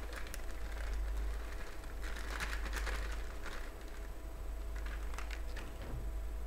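Plastic bag crinkling and rustling as cake mix is shaken out of it into a plastic bowl, with scattered light clicks. A steady low hum runs underneath.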